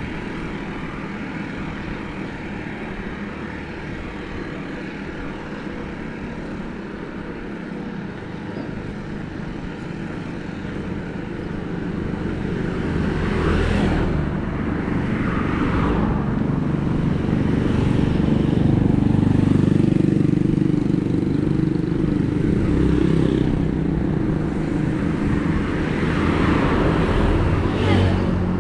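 Bicycle tyres rolling on a road, a continuous rushing noise with wind that grows louder about halfway through, with a few brief swells over it.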